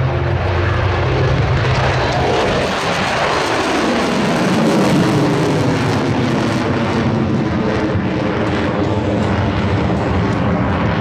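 F-22 Raptor fighter jet flying past: a loud jet roar whose pitch falls steeply about two to four seconds in as it passes, then a steady rumble.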